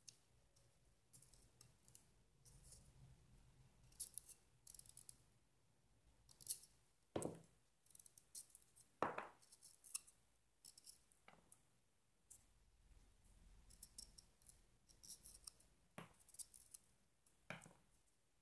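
Faint scratchy snipping and scraping of a small knife cutting into banana peel, with rustling as the bananas are handled, and four sharper knocks spread through.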